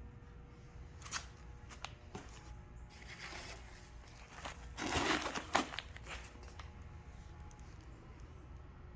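Handling noises: a few light clicks, then rustling and crinkling, loudest about five seconds in with a sharp click.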